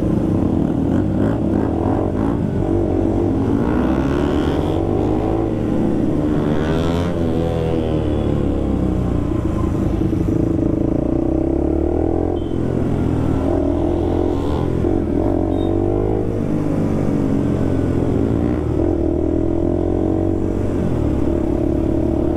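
Motorcycle engines running during a slow ride in traffic, the engine note rising and falling again and again with the throttle over a steady low rumble.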